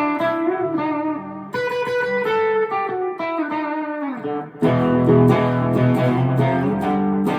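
Electric guitar played clean through a Harley Benton amp with no pedals, volume and gain at about one and a half. It plays a line of single picked notes, then louder strummed chords that ring on from about two-thirds of the way in.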